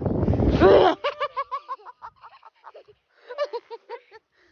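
A small child giggling in quick, high-pitched bursts of about four or five a second, in two runs with a short pause between, after a loud rush of noise at the start.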